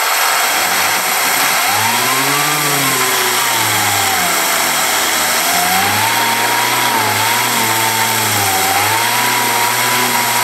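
Loud hiss of compressed air at 50 PSI from a blow gun driving a small 3D-printed air turbine coupled to a 6-volt motor, with a whine that wavers up and down in pitch without settling high. The coupler between turbine and motor is not fully balanced, so the turbine will not rev up under load.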